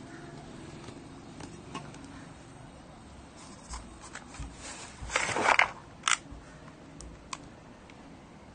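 Scattered small mechanical clicks from handling an airsoft pistol and its case, with a half-second rustling scrape about five seconds in and a sharp click just after.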